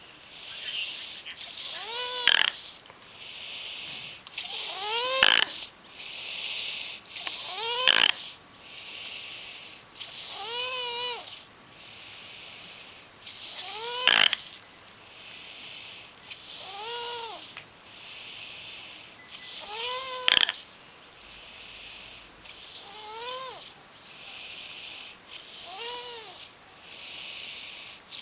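A three-year-old girl snoring in her sleep: a pitched snore that rises and falls on each breath, about one every three seconds, with a breathy hiss between.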